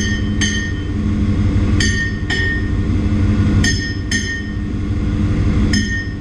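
Hammer blows on steel that ring out, coming in pairs about every two seconds, over the steady hum of engine-room machinery.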